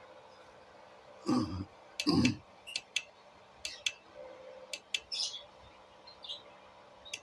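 Handling knocks and clicks while speaker wires are connected to an amplifier: two dull thumps a little over a second and about two seconds in, then a run of short sharp clicks, over a faint steady hum.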